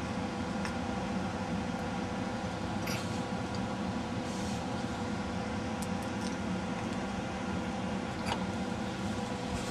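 Steady mechanical hum with a constant tone over an even hiss, with a few faint ticks.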